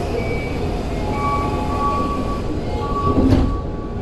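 Door-closing warning chime sounding as a repeated series of beep tones inside a Keio 9000 series subway car, then the sliding doors shutting with a thud about three seconds in, over the train's steady low hum.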